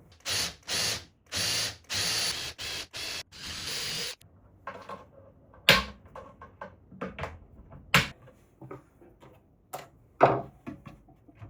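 Power drill running in several short bursts, followed by a handful of sharp knocks and clicks from handling wood and hardware.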